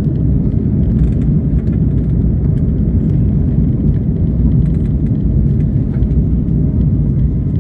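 Airliner landing: a steady loud low rumble with scattered small clicks.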